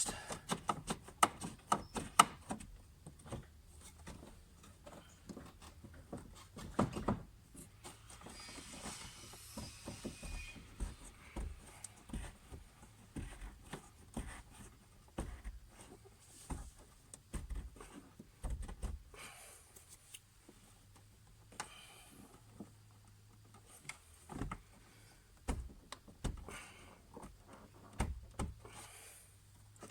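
Irregular clicks, taps and knocks from hands working a fuel pump's locking ring back over the pump on the fuel tank, with a few sharper knocks scattered through.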